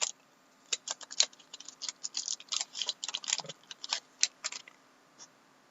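Typing on a computer keyboard: a run of quick, irregular key clicks that stops about four and a half seconds in.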